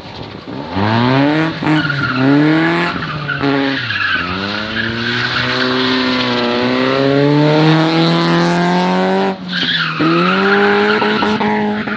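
Car engine revved hard while the tyres squeal in a doughnut spin. The revs climb in several surges, hold high, dip briefly about nine seconds in, then rise again.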